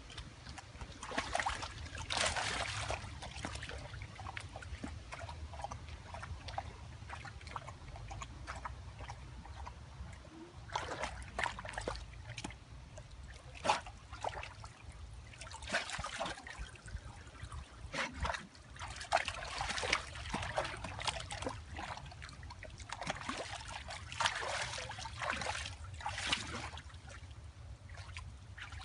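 A dog splashing in a plastic paddling pool: pawing and sloshing the water in irregular bursts, then water pouring off its coat as it steps out near the end.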